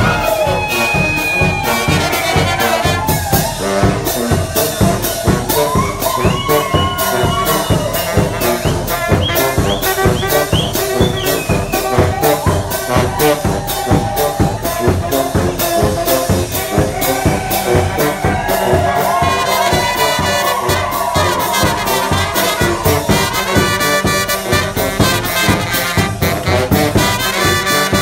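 Live brass band playing a lively tune: tuba, trumpets and saxophone over a steady drum beat.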